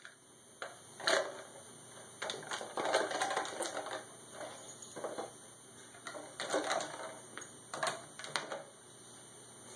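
Plastic water bottle with dog food inside being nosed and pushed about by a Yorkshire terrier: irregular crinkling clicks and clattering of the plastic, in uneven spurts with short pauses.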